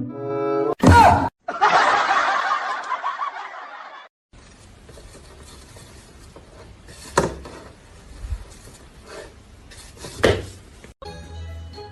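A brief sharp squeal, then a burst of people laughing for a couple of seconds. After it, quiet room sounds with two sharp clinks, like dishes.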